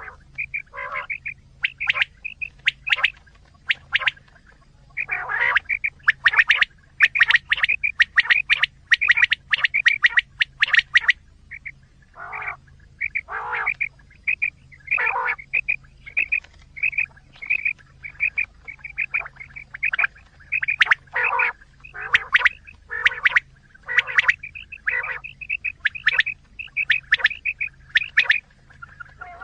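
Recorded quail calls played as a hunting lure: quick, repeated chirping notes in fast runs broken by short pauses, with some harsher, sharper notes mixed in.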